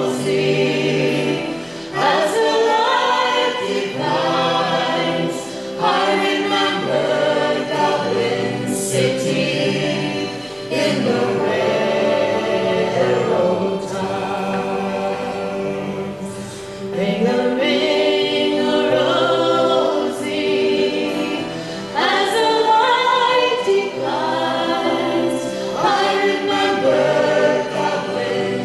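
Music: a song with a choir of voices singing together.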